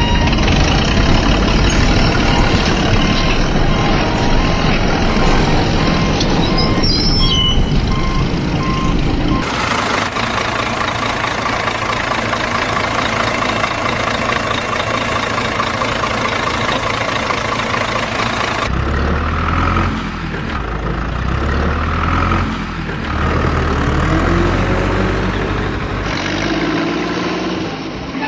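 Heavy truck engine running, with a reversing beeper sounding a steady series of beeps for the first third. The engine sound changes abruptly twice, as separate clips cut together.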